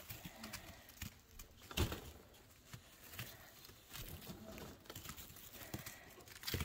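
Rustling and light clicks of wood-shaving bedding stirred by chinchillas scrabbling about and a hand moving through it, with a louder knock about two seconds in and another near the end.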